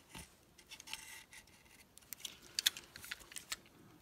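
Utility knife blade scraping moulding flash off the seam of a plastic grinder side handle in short strokes, with a quick run of sharp clicks and scrapes in the second half.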